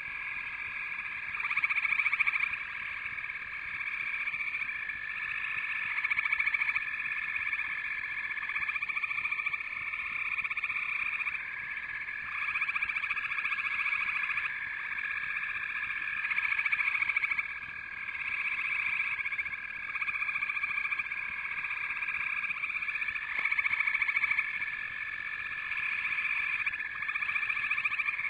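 A dense chorus of trilling animal calls, high-pitched, with a steady tone running under it, swelling and fading every few seconds.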